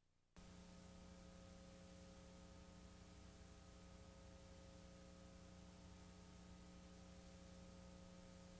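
Faint steady electrical hum with a hiss over it, cutting in abruptly about half a second in: mains hum and noise from the tape transfer, with no recorded sound of its own.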